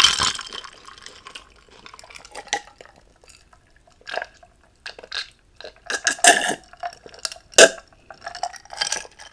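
Drinking from a glass: a run of sips and gulps starting about four seconds in, with a few sharp clicks among them.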